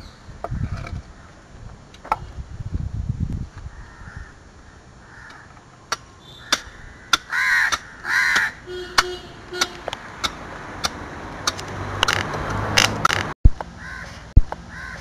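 Crows cawing, a few loud calls in the middle and more near the end, over irregular sharp strikes of a hand axe chipping and dressing a laterite stone block.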